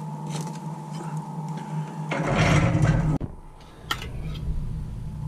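Rustling and scraping in a wood stove's firebox as a paper-bag-wrapped fish is worked over on the hot coals with tongs, louder about two seconds in, then a single sharp click near four seconds.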